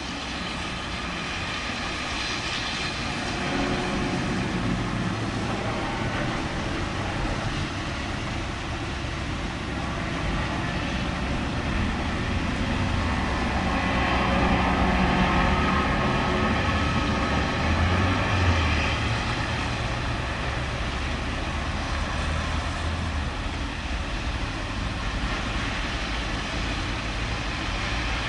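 Thunder rolling in a long low rumble that swells over several seconds, peaks past the middle and eases off, over a steady hiss.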